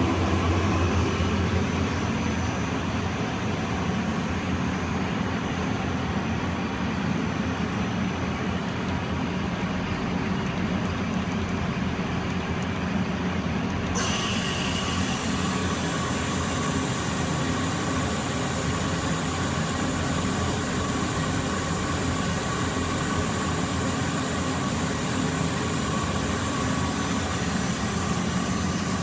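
Steady low mechanical hum of a powered-up Mori Seiki MV-Junior CNC vertical machining center. About halfway through, a higher hiss comes in suddenly and stays.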